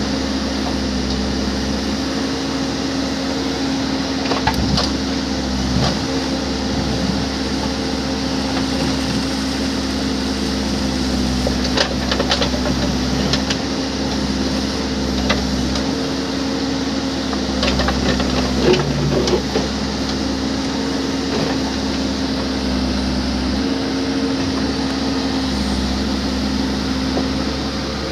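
Backhoe loader's diesel engine running steadily under work, with a few short knocks and clanks, clustered about halfway through.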